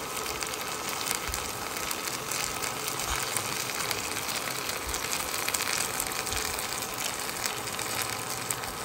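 Gravy sizzling and bubbling steadily on a hot cast-iron sizzling plate around a T-bone steak, a dense hiss full of fine crackles.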